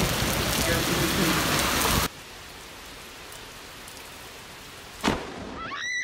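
Heavy rain pouring down on a street and splashing through standing water. About two seconds in it gives way to a quieter outdoor hush. About five seconds in, a sudden sharp thunderclap from a close lightning strike breaks it, followed by a short, high, rising shriek.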